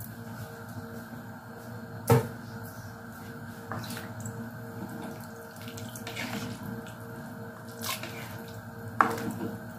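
A ladle stirring soup in a large aluminium pot on a gas stove, the broth sloshing, with two sharp knocks on the pot, about two seconds in and near the end.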